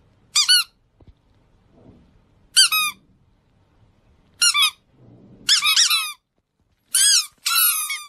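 Squeaky dog toy squeezed repeatedly: about six short clusters of high-pitched squeaks, each a quick rise and fall in pitch, spaced a second or two apart, the last two coming close together near the end.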